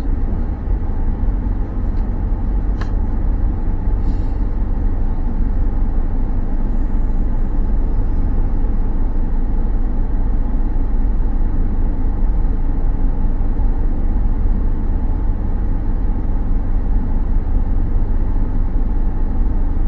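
Steady low rumble of a car's engine and tyre noise while driving, heard from inside the cabin.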